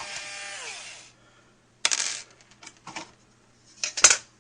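Intro sound effect of small metal objects clinking: a ringing that slides down in pitch for about a second, then a few sharp clinks, the loudest near the end.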